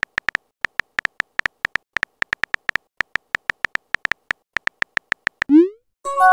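Simulated phone-keyboard typing clicks from a texting-story app: quick, uniform electronic ticks, several a second, as a message is typed out letter by letter. About five and a half seconds in, a short rising swoop sound plays as the message is sent, and a steady electronic chord tone starts right at the end.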